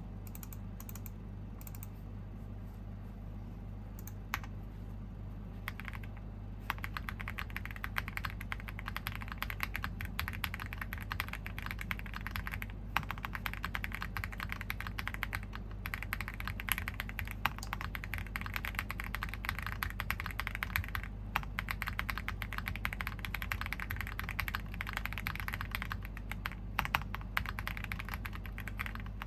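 KBDFans Phase One 65 custom mechanical keyboard with a polycarbonate plate, stock WS Morandi switches and GMK Noire keycaps, typed on with a poppy clack. A few single keystrokes come first, then fast, continuous typing from about a quarter of the way in.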